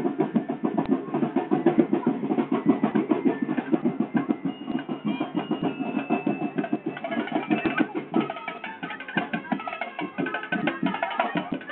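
Sinulog street-dance drum band playing a fast, steady percussion beat; the drum pattern changes about eight seconds in.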